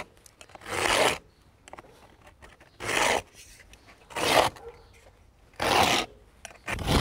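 Carbide-tip scoring knife drawn along a straight edge across quarter-inch cement board, scoring it for a snap cut: about five separate scraping strokes, each about half a second long.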